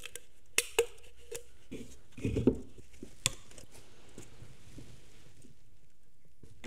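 Gloved hands handling a spool of MIG welding wire and bringing its end to the welder's drive-roll wire feeder: a few light metallic clicks and rustles, with a duller knock a little over two seconds in.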